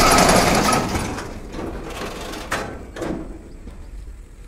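An SUV's tyres rolling up a steel loading ramp of slatted plates: a loud, rattling clatter that fades over the first second or so, then two sharp knocks about half a second apart.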